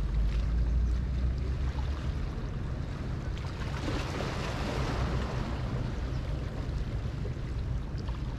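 Wind buffeting the microphone, with waves washing; the wind rumble is heaviest in the first couple of seconds, and a wave swells up about four seconds in.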